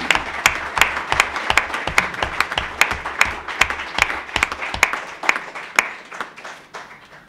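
Audience applause: dense hand-clapping that thins out after about five seconds and fades away near the end.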